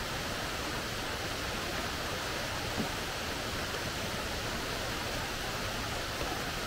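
Steady rush of a rocky creek, water running over stones in shallow riffles.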